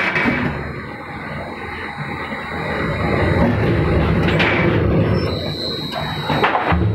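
Log debarking machine running, its spiral rollers turning a log against the cutters: a steady mechanical rumble broken by knocks of wood. A high steady whine comes in about five seconds in.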